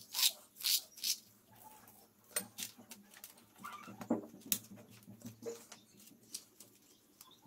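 Metal spoon scraping and clinking in a ceramic bowl of coffee grounds while vegetable scraps are pressed into a plastic bottle: a run of short clicks and scrapes, busiest in the first second.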